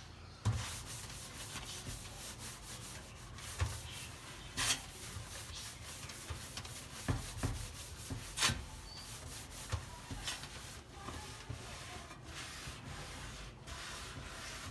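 Scrubbing a surface by hand, a continuous scratchy rubbing, with a few sharp knocks in between.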